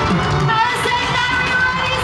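Pop song playing, with a singing voice over a dense, steady backing.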